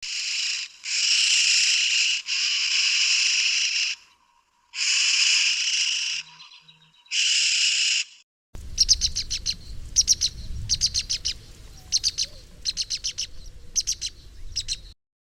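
Two recorded bird calls in turn. First comes a harsh, buzzy call in several phrases of one to two seconds each. About eight seconds in it gives way to a different recording of rapid, dry clicking notes in quick runs.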